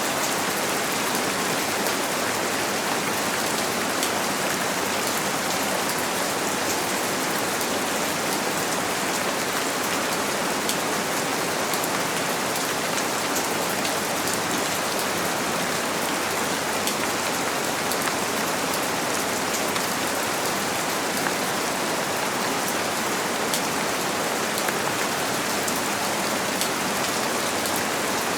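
Steady rain on a window, blended with white noise: an even hiss with faint, scattered taps of single drops.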